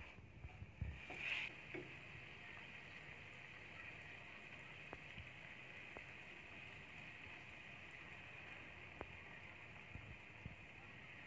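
Chicken and bell pepper sizzling softly in a frying pan, a steady faint hiss, with a few light taps of a plastic spatula against the pan in the first couple of seconds.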